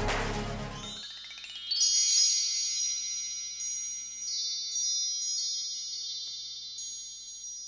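Electronic music fading out in the first second, then high tinkling chimes: many quick bell-like strikes whose tones ring on and slowly die away toward the end.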